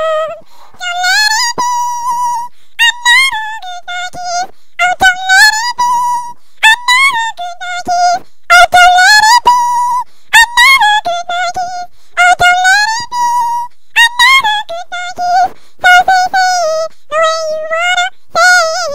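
A high, squeaky singing voice carrying a melody in short phrases of one to two seconds, with held notes that waver, like a voice pitched up far above normal.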